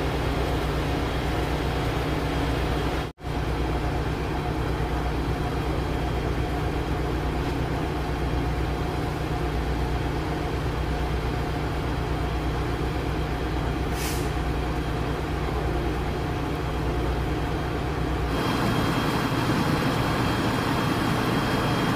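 Heavy diesel vehicle engine idling with a steady low rumble, with a short hiss about fourteen seconds in. The sound cuts out for a moment about three seconds in.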